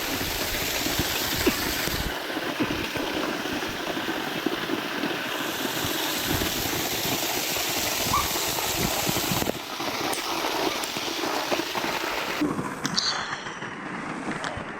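A steady rush of splashing water, a dense hiss that changes abruptly a few times.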